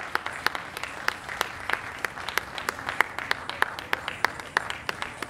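Audience applauding, with several distinct sharp claps standing out close by.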